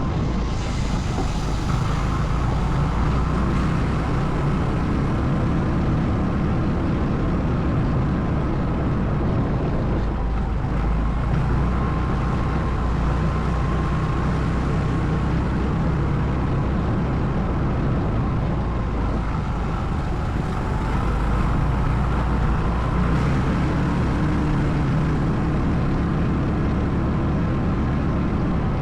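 ATV engine running steadily during a ride.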